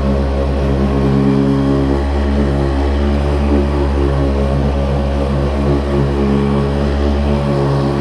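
Handheld electric massage device running with a steady motor hum, wavering slightly in places as it is worked over the patient's back.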